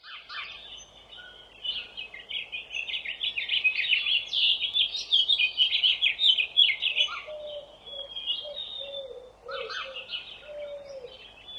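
Birds chirping and singing: a dense chorus of quick high chirps, busiest in the first half and thinning out later, with a few lower whistled notes in the second half.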